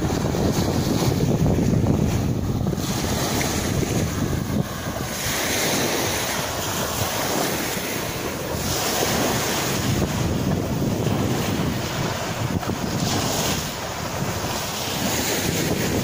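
Small waves breaking and washing up a shelly sand beach, the rush of surf swelling and easing several times. Wind rumbles on the microphone, heaviest in the first few seconds.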